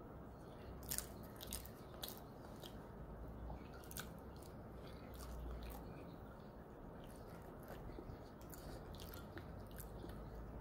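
A person chewing sushi close to the microphone, with scattered small wet clicks and smacks throughout.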